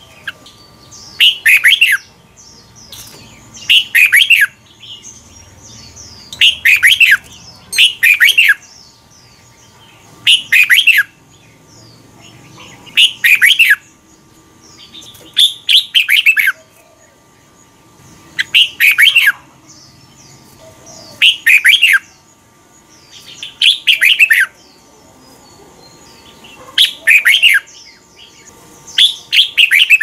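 Red-whiskered bulbul singing: short, loud whistled phrases repeated about every two and a half to three seconds, with pauses between.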